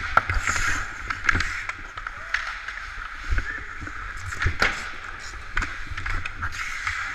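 Ice hockey skates scraping and carving on the ice, heard up close from a player-worn camera, with sharp clacks and knocks of sticks and puck scattered through it. The loudest knocks come right at the start and about four and a half seconds in.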